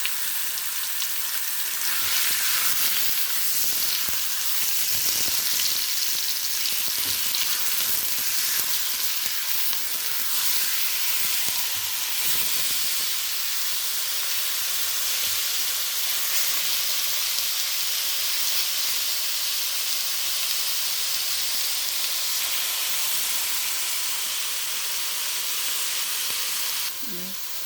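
Chicken strips, coated in olive oil and spices, sizzling as they fry in a skillet over a high flame; the sizzle drops a little near the end.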